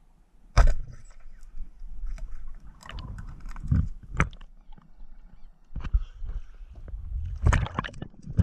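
Irregular sharp knocks and bumps with scraping and rumbling between them. The loudest comes about half a second in, with a cluster near the end.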